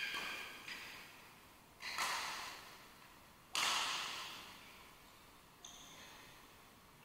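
Badminton rackets striking a shuttlecock in a rally: three sharp hits about two seconds apart, the third the loudest, each ringing on in the echo of a large hall. A short high squeak comes near the end.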